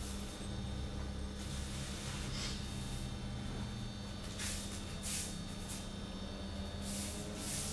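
Several short soft swishes of judogi cloth and bare feet shuffling on the tatami as the judoka rise and walk, over a steady low electrical hum.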